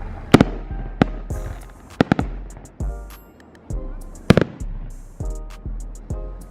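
Fireworks going off: a string of sharp bangs, loudest about half a second and four seconds in, each followed by a low rumble, with music playing alongside.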